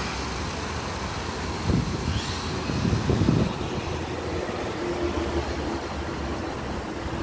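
Kyosho Inferno Neo 3.0 VE electric RC buggy's brushless motor (Surpass Hobby 4076, 2000kV on 6S) accelerating away on a speed run, its whine rising about two seconds in over a steady rushing noise.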